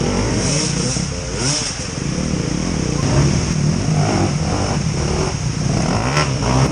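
Off-road vehicle engine revving up and down repeatedly under load while climbing a slippery waterfall rock.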